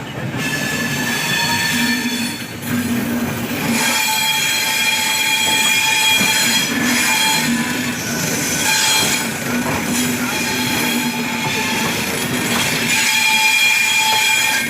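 Steel wheels and brakes of a slowly arriving express train screeching. It is a shrill squeal of several high tones that wavers, breaks off and comes back, over the rumble of the rolling coaches.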